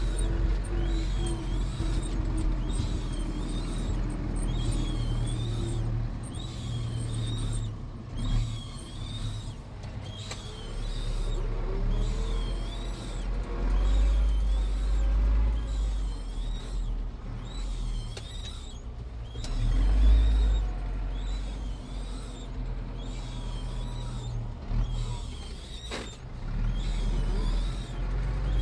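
Zetor 7245 tractor's four-cylinder diesel engine running under load while pushing snow with a front blade, heard from inside the cab as a low rumble that swells and eases, loudest about two-thirds of the way through. A faint high chirp repeats about once a second over it.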